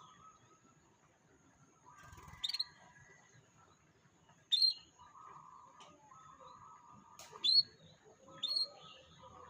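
Canary calling: four short, sharp chirps, each dropping quickly in pitch, between softer lower warbling phrases about a second long, over a thin steady high-pitched tone.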